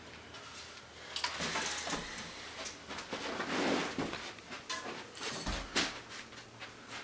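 A bicycle being lifted and handled: a run of knocks, rattles and scrapes from the frame and wheels, with a heavier thump about five and a half seconds in.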